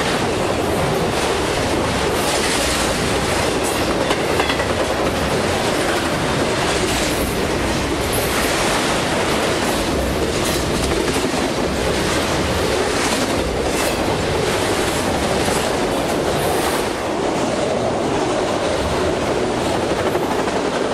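Autorack cars of a CSX freight train rolling past close by at speed: a steady, loud rumble of steel wheels on rail, with repeated clacks as the wheels cross rail joints.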